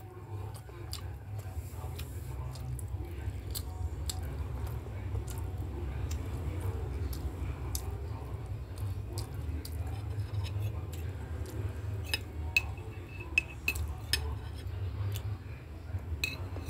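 A child eating: chewing and mouth noises, and a metal spoon clinking and scraping on a plate, heard as scattered sharp clicks that grow more frequent towards the end, over a steady low hum.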